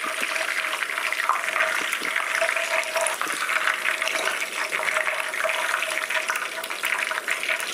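Hot cooking oil sizzling and crackling steadily in deep-frying, with a faint steady hum underneath.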